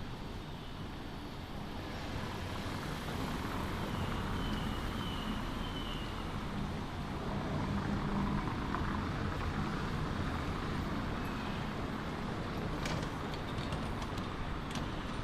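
Road traffic noise: a steady rumble of passing vehicles that swells between about three and eight seconds in.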